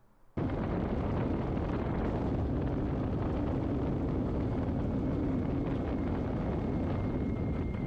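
Steady engine drone mixed with wind rushing over the microphone, starting abruptly about half a second in.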